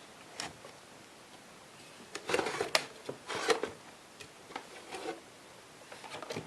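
Handling sounds: a few short rubs and scrapes with light clicks, and one sharp click about two and a half seconds in, as objects are moved about on a workbench.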